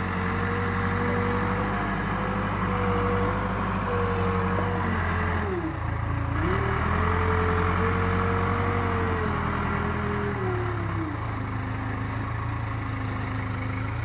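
Case 580K backhoe's four-cylinder diesel engine running as the machine drives and maneuvers, with a steady high tone over the engine drone. The engine speed drops briefly about halfway through, then picks back up.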